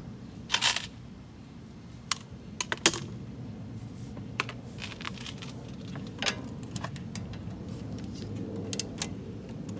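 Scattered sharp metallic clinks and clicks of a ratchet, sockets and bolts being handled while a car's front coilover is unbolted. A couple of the clinks ring briefly.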